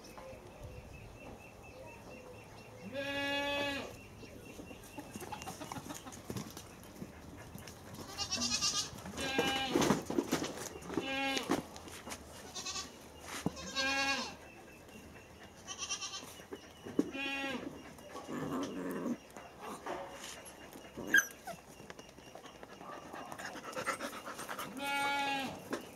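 Drawn-out pitched animal calls, each about a second long, repeated about seven times a few seconds apart, over the scuffling of a puppy and a cat play-fighting. One sharp knock comes late on.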